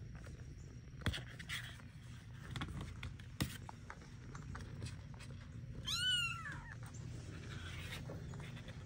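A kitten gives one high-pitched mew about six seconds in, rising then falling in pitch, with a couple of faint knocks earlier on.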